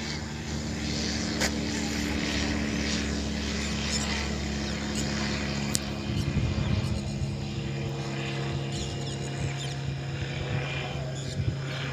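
Steady engine drone of a small single-engine propeller plane flying overhead. Its tone drops a little about six seconds in.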